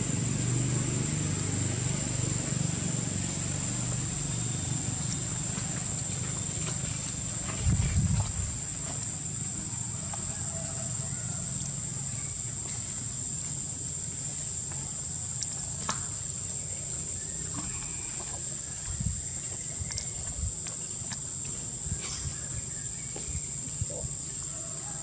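Steady high-pitched drone of insects, with a low rumble underneath. A single dull thump about eight seconds in, and a few faint clicks.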